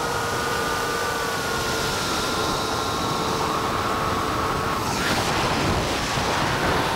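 FPV quadcopter's motors and propellers whining, steady tones sliding slowly down in pitch over a rush of wind noise. About five seconds in, the whine breaks into a short rising rush of noise, then settles again.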